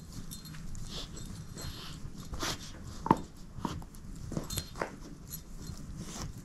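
Dog chewing and tugging at a plush toy, with a scatter of short sharp snaps and clicks from her mouth on the toy. The loudest comes about three seconds in.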